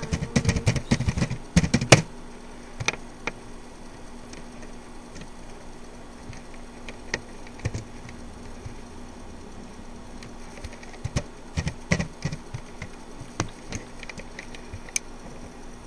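Computer keyboard typing: a quick run of keystrokes in the first two seconds, then scattered single key taps through the rest, over a faint steady hum.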